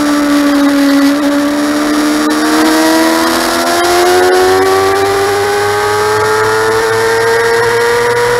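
Motorcycle engine heard from on board while riding. The revs dip slightly about a second in, then rise steadily as the bike accelerates through the gear, over a steady rush of wind and road noise.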